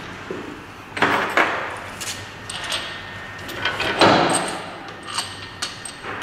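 Metal parts of a wheel balancer's universal flange adapter clinking and clunking as they are handled and fitted onto the balancer shaft, with handling rustle. The knocks come irregularly, the loudest about four seconds in, with a few sharp clicks near the end.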